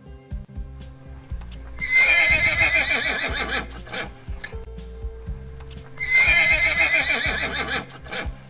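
Horse whinnying twice, each whinny a shaking, high call of about two seconds that falls away, the first about two seconds in and the second about six seconds in, over background music.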